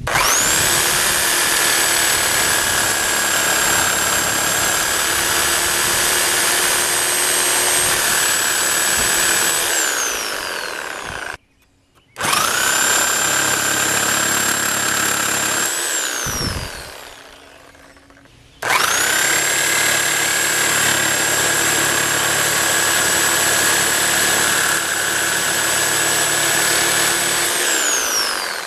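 Handheld electric power tool cutting through a steel pipe clamped in a vise, run three times. Each run spins up to a steady high whine over a grinding hiss, then winds down with a falling pitch.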